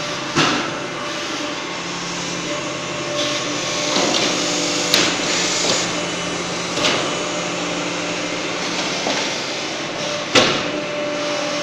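PMB 1200 hydraulic biomass briquetting press running: a steady mechanical hum with about four sharp knocks a few seconds apart.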